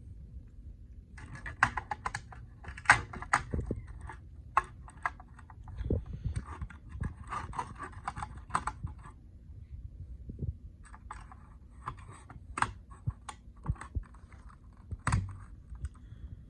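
Irregular clicks and taps of hard plastic as the new carbon monoxide alarm is handled and its AA batteries are fitted, with a short pause just past halfway.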